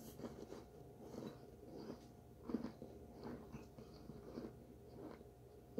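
Close-up chewing of baked cornstarch: a faint, steady run of soft crunching chews, about two a second, with one louder crunch about two and a half seconds in. The starch is less crunchy than intended.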